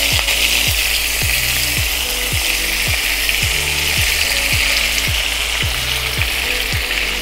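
Stuffed small brinjals frying in hot oil in a wok, a steady sizzle as more are laid in. Under it runs a low, regular thud about twice a second.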